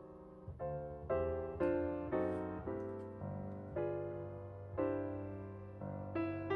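Background piano music: notes and chords struck at an unhurried pace, each ringing and fading before the next.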